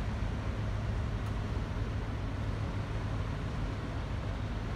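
Steady low engine rumble with a hiss of wind and water as a large container ship passes close by.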